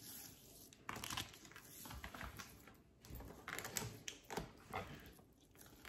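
Hands rubbing oil and seasoning into the skin of a large raw whole salmon: a faint, irregular series of short rubbing noises.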